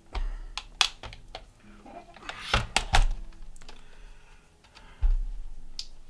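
Plastic top case of an Asus K53E laptop being pried and pulled off its base: a string of sharp clicks and knocks as the snap clips let go, with heavier thuds about two and a half to three seconds in and again about five seconds in.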